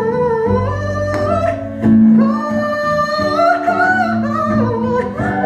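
Music: a singer's voice holding and sliding between notes over instrumental accompaniment.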